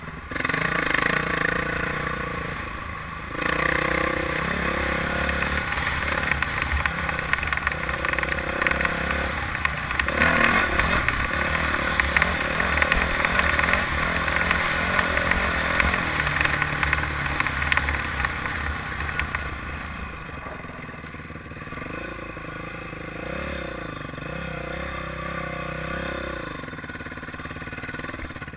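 Dirt bike engine heard from the rider's helmet while riding a dirt trail, its pitch rising and falling as it revs, with wind noise and clatter over bumps. It eases off and runs quieter for the last several seconds.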